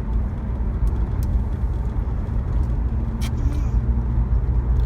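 Steady low rumble of a running motor vehicle, with a few faint light clicks.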